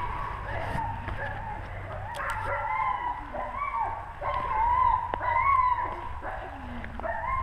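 Wolfdogs giving a run of high-pitched whines and yips, short calls that bend up and down in pitch, some held for about half a second.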